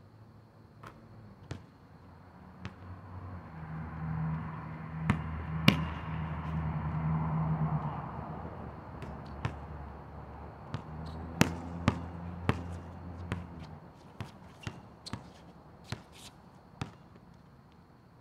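Basketball bouncing on an outdoor asphalt court: scattered sharp bounces, coming thicker in the second half. Under them a low hum swells up about three seconds in and fades away again before the end.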